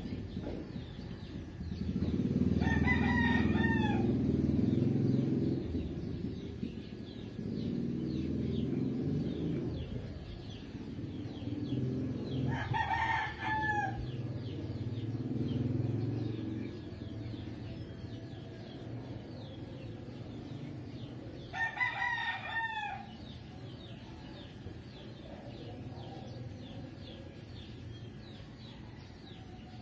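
Rooster crowing three times, about nine to ten seconds apart, each crow a long call that drops in pitch at the end, over a low rumble that comes and goes.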